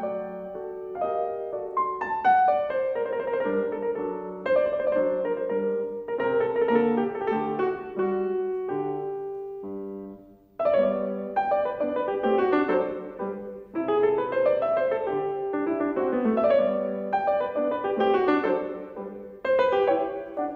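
Steinway grand piano played solo: a classical piece in quick successions of notes, with a brief pause about halfway through before the playing resumes.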